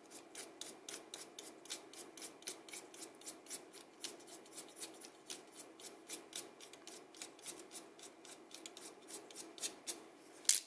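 Light, quick strokes of a slim snap-off utility knife blade shaving the wood casing of a Primo 3B charcoal pencil, about five faint scrapes a second. A sharper click comes near the end.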